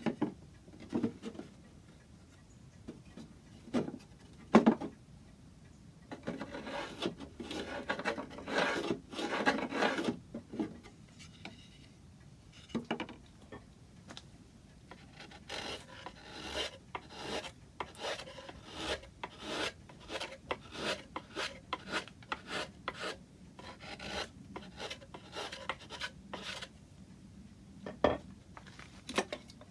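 A hand tool scraping and rasping wood, scooping material out of the middle of a piece so it fits a curve. A few separate knocks come first, the loudest a sharp one about four and a half seconds in, then a dense run of strokes, then short regular strokes at about two a second.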